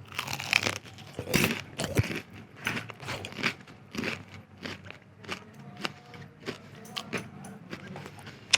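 Close-miked bite into crispy KFC fried chicken, the coating crunching loudly, followed by crunchy chewing.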